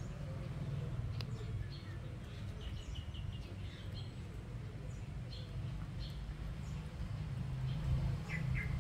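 Small birds chirping in the background, short high chirps with a quick run of several about three seconds in, over a steady low rumble.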